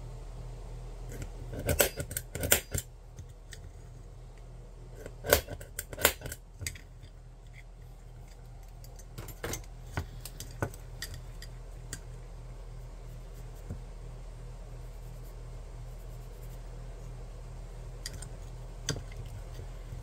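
Small metal parts (aluminium angle pieces and threaded rods) clinking and clicking as they are handled and set down, in a few short clusters of sharp clicks, over a steady low hum.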